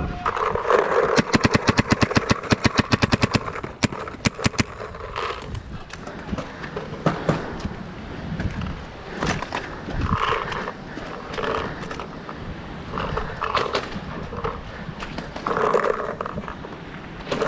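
Paintball marker firing a rapid string of shots, about ten a second for roughly three seconds, followed by scattered single shots.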